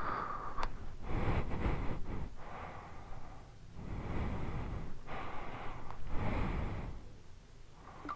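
A person breathing close to the microphone: several slow breaths, each about a second long, over a low rumble.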